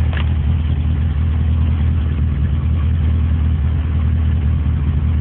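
1978 Porsche 924's 2.0-litre four-cylinder engine idling steadily with a loud ticking from the valvetrain: loose tappets with too much valve clearance, left by valve stems that were not ground after a valve job.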